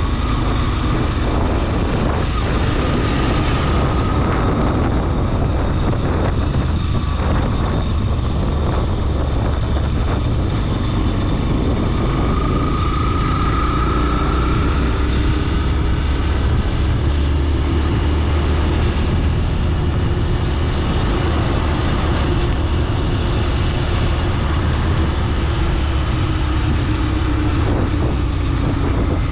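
Steady engine and road rumble from a vehicle travelling along the highway, with a faint whine about halfway through.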